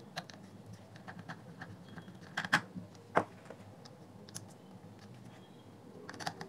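Scattered light clicks and taps of small screws and a thin metal tool against the plastic base of a JBL Pulse Bluetooth speaker being put back together. Two sharper clicks come about two and a half and three seconds in.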